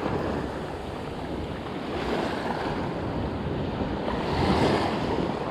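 Small waves washing onto a sandy beach, swelling and easing, with wind rumbling on the microphone.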